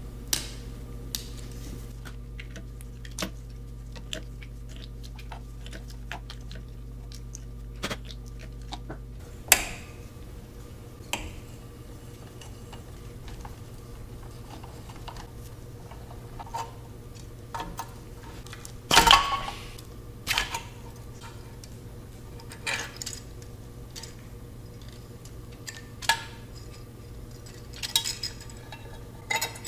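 Metal tools and engine parts clinking and clanking in scattered, irregular knocks during hands-on engine repair work, with a louder cluster of clatter past the middle. A steady low hum in the background cuts off about nine seconds in.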